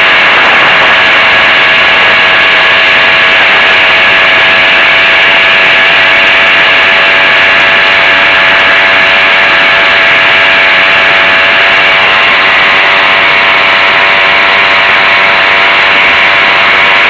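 Zündapp M50 Bergsteiger moped's 50 cc two-stroke single-cylinder engine running steadily at road speed, loud and close, with an even engine note that holds throughout.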